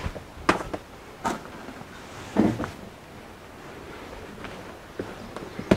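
A few soft knocks and rustles from handling the cut end of an RV slide-room cable while it is wiped clean with an alcohol-soaked rag.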